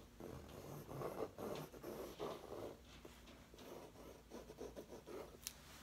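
Listo wax marker scribbling on a canvas: faint rubbing strokes about two a second, easing into lighter scratches and a few ticks in the second half.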